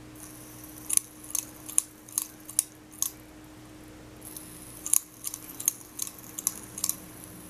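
A metal fidget spinner being spun and handled, giving a string of short sharp clicks, about two or three a second, with a pause of over a second near the middle.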